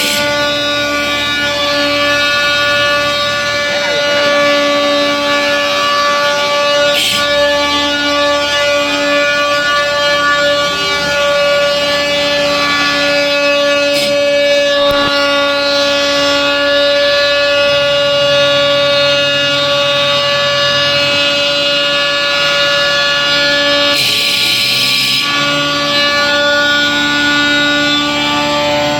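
Multi-head stone-cutting CNC machine running with a steady, loud whine made of several fixed pitches, a few short clicks, and a brief hiss about 24 seconds in.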